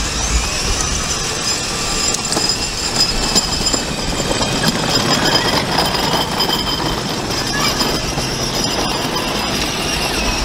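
Child's battery-powered ride-on toy car driving over brick paving: a steady motor whir and the rumble of its plastic wheels on the pavers, over outdoor background noise.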